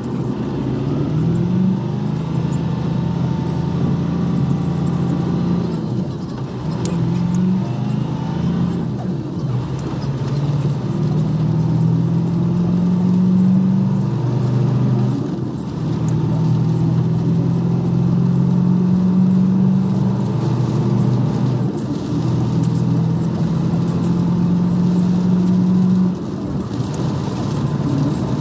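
Heavy truck's diesel engine heard from inside the cab, pulling away and working up through the gears: the engine note climbs, breaks off at each gear change and picks up again, several times over.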